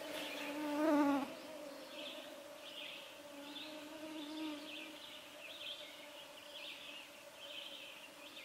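Flying insects buzzing close by: a fly's buzz swells past loudest about a second in and comes back faintly in the middle, over a steady thin whine of mosquitoes. Faint high chirps repeat throughout.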